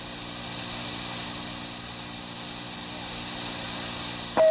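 Steady hum and hiss of an old police radio dispatch tape recording, with no voices on the channel. A loud burst of radio traffic cuts in right at the end.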